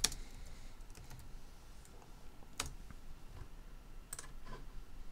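A few faint, widely spaced clicks of computer keys being pressed while a folder name is typed.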